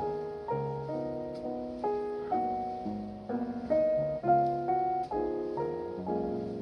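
Piano music: a gentle piece of chords and melody notes, struck about twice a second.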